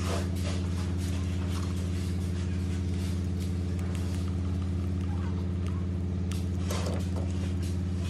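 A steady low hum, one strong drone with several even overtones, runs unchanged throughout. Over it come small scattered clicks and rustles as gloved hands handle the wires and a screwdriver works the terminal screws of a fan's remote-control circuit board.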